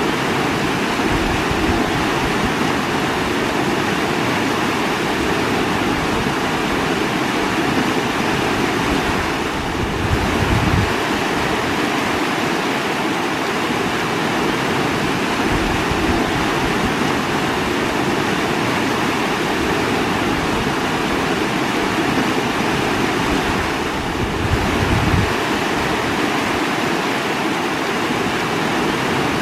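Running water rushing steadily, with a brief deeper swell about ten seconds in and again near the end.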